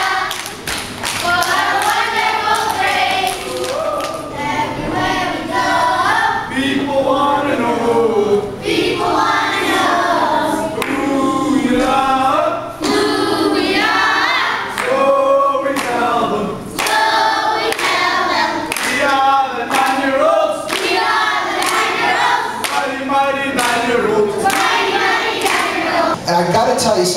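A group of children singing together, with hand claps throughout.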